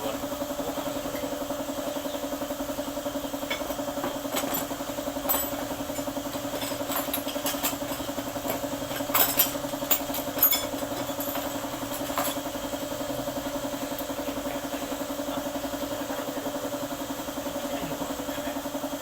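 Daihatsu Taft GT diesel engine idling steadily with an even, rapid pulse. A few sharp metallic clicks and taps come in the middle.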